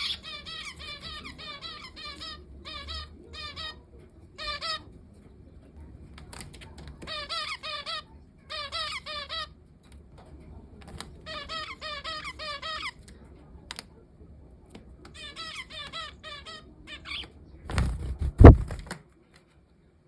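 Pet finch singing: short phrases of quick, evenly repeated notes, each about a second long with brief pauses between. A loud thump near the end.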